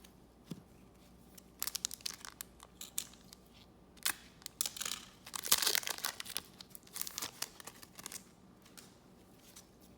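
Plastic wrapper of a Garbage Pail Kids trading card pack crinkling and being torn open, in scattered bursts. The longest, loudest burst comes about halfway through.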